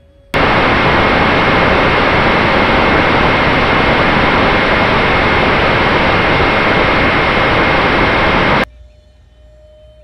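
Homemade foam RC Viggen jet model's electric fan motor running flat out: a loud, steady rushing hiss with a thin high whine through it. It cuts in sharply and stops abruptly near the end.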